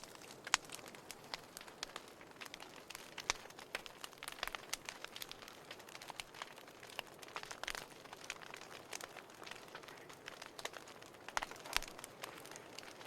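Wood fire in a fireplace crackling, with irregular sharp pops and snaps over a soft hiss of burning.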